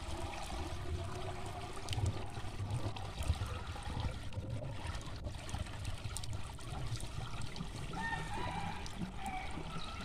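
Muddy water trickling and pouring from a pump's outlet pipe into a cloth bag tied over its mouth, with a low rumble underneath.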